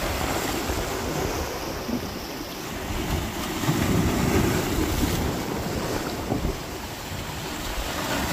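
Storm wind buffeting the microphone: a steady rushing noise with rumbling gusts, swelling loudest around four seconds in.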